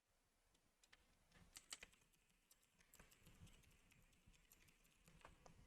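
Faint typing on a computer keyboard: irregular keystrokes, with a quick cluster about a second and a half in.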